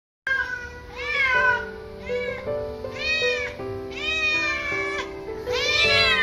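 A domestic cat meowing loudly and repeatedly, about once a second, over background music.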